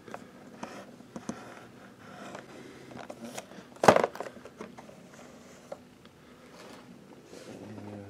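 Boxed action-figure packaging being handled, cardboard and clear plastic: scattered light scrapes and clicks, with one louder knock about four seconds in.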